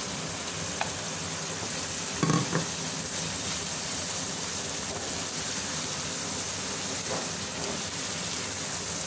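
Onion-tomato masala sizzling in a frying pan as fried bitter gourds are stirred into it with a spatula: a steady frying hiss, with a brief pitched sound about two seconds in.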